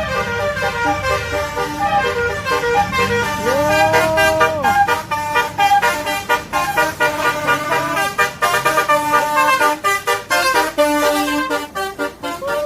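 Bus musical horn playing a tune of quick stepped notes. About four seconds in comes a longer horn blast whose pitch rises, holds and sags. Another sagging blast starts near the end.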